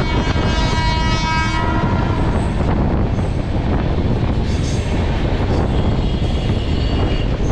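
Indian Railways train horn sounding in a steady held tone that stops about a second and a half in, then the steady noise of the moving train running along the track.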